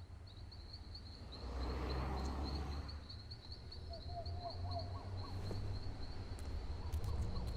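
Outdoor ambience: an insect, cricket-like, chirping in a steady rapid high-pitched trill, with a bird giving four short rising notes about four seconds in, over a low rumble.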